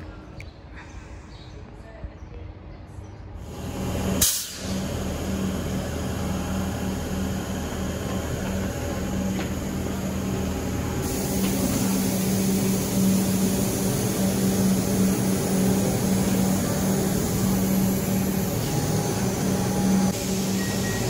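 A heavy road or rail vehicle's engine running close by, with a strong steady hum. A short sharp hiss about four seconds in, and louder and hissier from about eleven seconds in.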